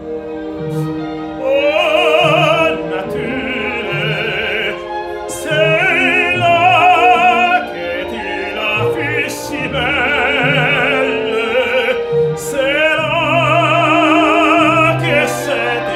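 Operatic tenor singing an aria in full voice with wide vibrato, over orchestral accompaniment. The voice comes in about a second and a half in and sings several long, sustained phrases with brief breaths between them.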